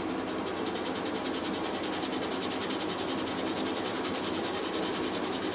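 A thin scrap of salvaged mahogany veneer being rubbed by hand on a sheet of sandpaper in rapid, even back-and-forth strokes, feathering its edge to a taper for a patch. The scratching stops near the end.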